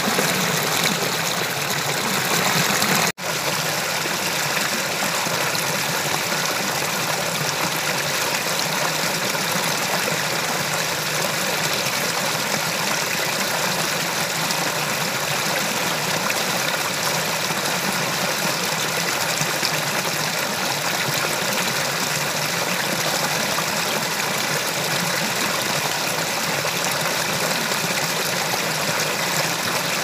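Steady rush of water from a small stream pouring over rocks, with a brief break about three seconds in where the sound cuts out and resumes.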